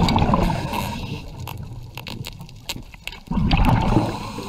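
Underwater water noise: two swells of low bubbling rumble, one at the start and one about three seconds in, with scattered sharp clicks throughout.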